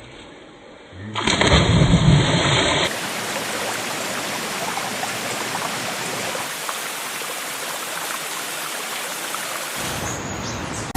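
Forest ambience sound effect: a loud low rumble lasting about a second and a half, starting about a second in, then a steady, even rushing noise.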